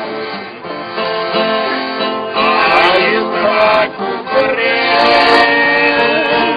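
A small group of older street musicians playing acoustic guitars and an accordion, with a man singing over them in a folk song style.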